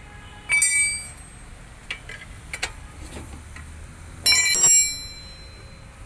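Metal parts clinking together: two loud ringing clanks, about half a second in and again about four seconds in, with a few lighter metallic taps between.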